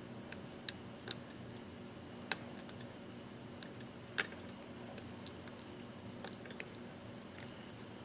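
Lock pick raking and lifting pins inside a challenge lock held under light tension: small irregular metallic clicks, a dozen or so, with two sharper ones a little after two seconds and about four seconds in. The lock is in a false set.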